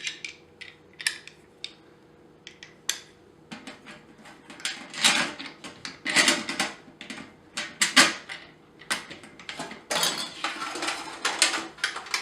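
Metal barbecue parts and small hardware (carriage bolts, washers, wing nuts) clinking and knocking as they are handled and fitted together. Scattered clicks at first, then a busier run of knocks and rattles from about three and a half seconds in.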